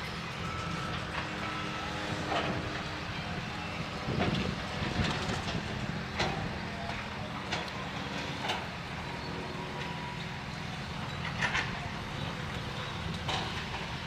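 A motor vehicle's engine running steadily, with scattered knocks and clatters over it.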